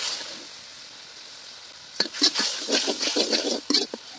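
Spice paste frying in oil in a wide metal karahi while a flat metal spatula stirs and scrapes it around the pan. A sizzling hiss at the start dies down, then from about two seconds in come quick repeated scrapes of the spatula against the pan.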